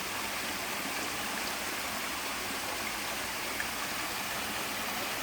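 Small park waterfall: water falling and rushing steadily.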